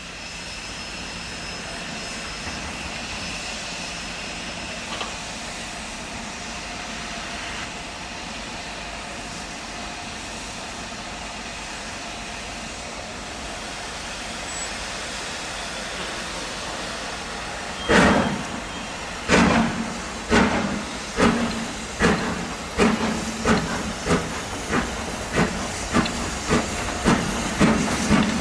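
LMS Stanier Black 5 steam locomotive hissing steam steadily, then starting away about two-thirds through: one heavy exhaust chuff, then regular chuffs quickening to about two a second as it gathers speed.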